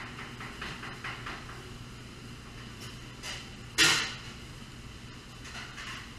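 Handling noise from tying a stuffed porchetta roll with twine on a stainless steel table: a few faint scuffs early, then one short loud clatter about four seconds in, over a steady low kitchen hum.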